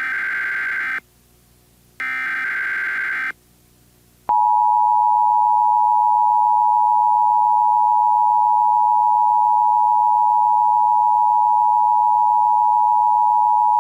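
Emergency Alert System broadcast tones: two short blasts of digital header data noise about a second apart, then, about four seconds in, the steady two-tone EAS attention signal that holds on loudly.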